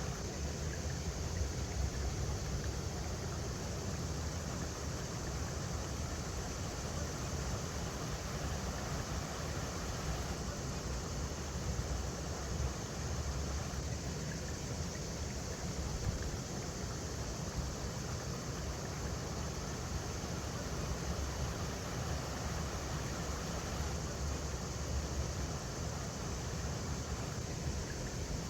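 River water running over rocks: a steady, even rush with a strong low rumble underneath.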